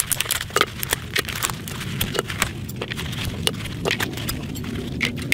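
Irregular clicks and clatter of broken plastic laptop-battery casing and 18650 lithium-ion cells being handled and pulled apart, over a steady low rumble.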